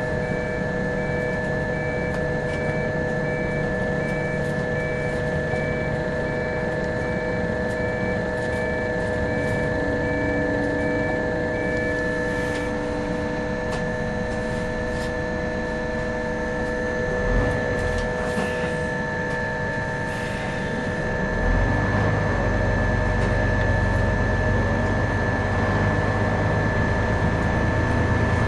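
Scania OmniCity bus heard from inside the cabin: the engine running under a steady mix of whining tones and rumble, with a brief thump partway through. The low engine rumble grows louder and deeper about three quarters of the way through.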